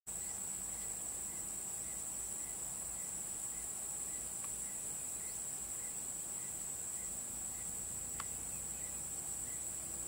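Steady high-pitched drone of forest insects, with a faint pip repeating about twice a second and a couple of brief chirps.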